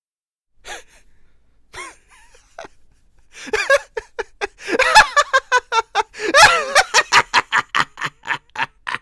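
Maniacal laughter from a single voice. A couple of faint breathy giggles come first. Then, a few seconds in, a rapid staccato 'ha-ha-ha' of about four or five pulses a second builds to two loud peaks and tapers off.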